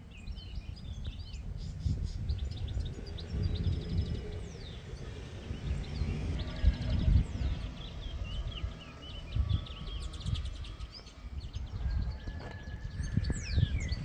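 Mixed chorus of small songbirds chirping, trilling and singing in trees, among them European goldfinches and greenfinches, many short calls overlapping. Underneath, an uneven low rumble of noise on the microphone.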